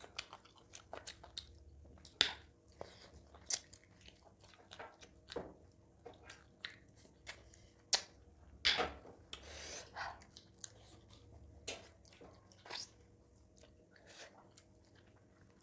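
Close-up eating sounds of two people chewing and biting chicken on the bone with millet dhido and curry, eaten by hand: irregular wet mouth smacks, clicks and crunches, with a longer slurping noise about nine seconds in.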